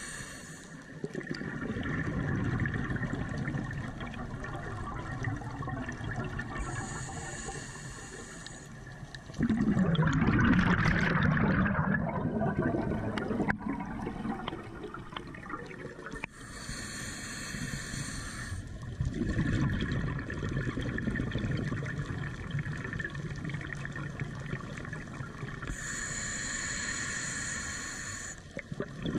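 Scuba regulator breathing heard from inside a GoPro's waterproof housing underwater. Each inhalation is a high hiss with a thin whistle lasting about two seconds, roughly every nine seconds. The exhalations are a rushing, gurgling stream of bubbles, loudest about ten seconds in.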